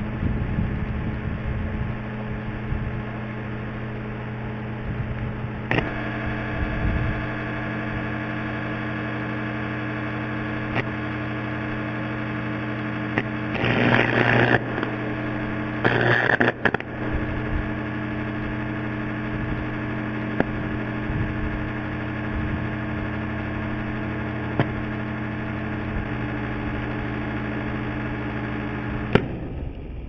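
A gutted microwave oven overdriven on 240 volts hums loudly from its high-voltage transformer as it burns out. There are two bursts of arcing about halfway through, and the hum stops with a sharp click near the end.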